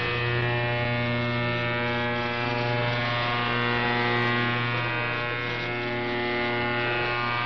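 Loud shortwave buzzer jamming Republic of Yemen Radio on 11935 kHz, heard through a Qodosen SR-286 portable radio's speaker: a steady, rough buzz rich in overtones that drowns out the station. The listener takes it for a deliberate jammer rather than a defective transmitter.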